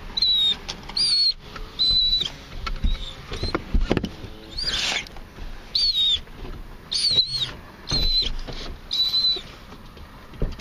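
Dogs whining in a car, excited on the way to the dog park: a string of short, high-pitched whines, about one a second, each bending in pitch, with a rougher, louder cry about halfway through.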